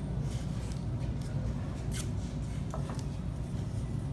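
Masking tape being peeled off the roll and torn, a few short crackling rips, over a steady low room hum.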